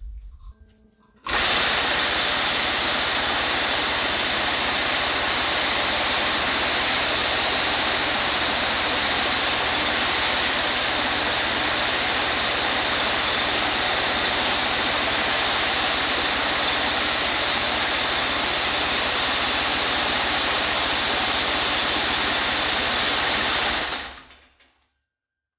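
Reciprocating power hammer running at a fast, steady rate, a loud racket as a sheet-metal patch panel is fed through its dies to form a bead. It starts suddenly about a second in and winds down near the end.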